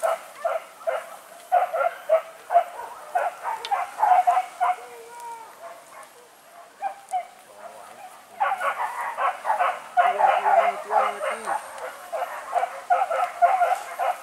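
Pack of hunting dogs barking in fast, overlapping bursts. The barking thins to a few scattered calls for a few seconds in the middle, then picks up densely again.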